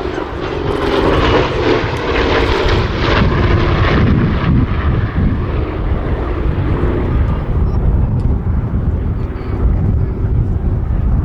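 Douglas A-26 Invader's twin Pratt & Whitney R-2800 radial engines running loud on a display pass, with a low rumble throughout. The upper, buzzier part of the engine sound fades from about halfway through as the aircraft draws away.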